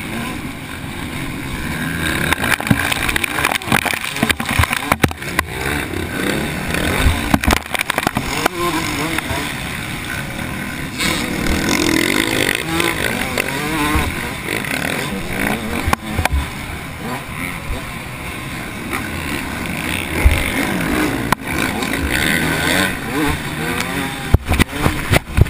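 TM Racing 144 two-stroke motocross bike's engine revving up and down as it is ridden hard round a dirt track, heard from a camera mounted on the bike, with wind noise and frequent sharp knocks.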